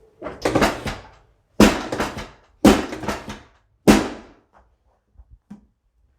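Four thumps about a second apart, each dying away quickly, as the chiropractor thrusts on the back of a patient lying face down on the adjusting table during a back adjustment.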